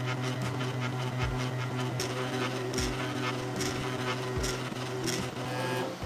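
A 3D printer's stepper motors running during a print, a steady whirring hum with faint regular ticks as the print head moves.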